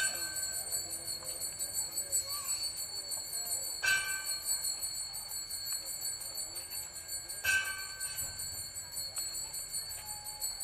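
Altar bells rung three times during the elevation of the chalice at the consecration, each ring a sharp jingle followed by a long shimmering ring-out.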